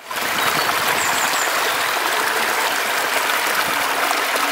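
Shallow river water rushing over rocks: a steady, unbroken rush of running water.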